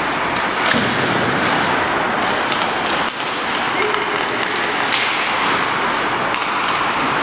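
Ice hockey play on an indoor rink: a steady hiss of skates on the ice, with several sharp clacks and thuds of sticks and puck.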